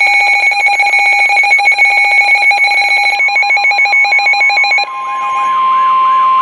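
Electronic weather-alert tones: a rapid, pulsing ringing of several tones, then about five seconds in a single steady warning alarm tone of NOAA Weather Radio takes over, with a repeating warble beneath it, announcing the next severe weather warning.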